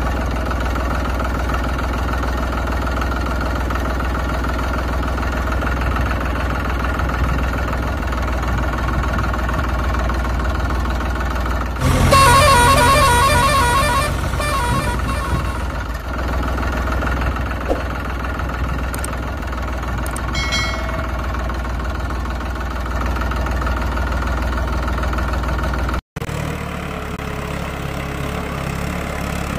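Tractor engine running steadily, with a loud horn blast about twelve seconds in that lasts around three seconds. The engine note changes near the end.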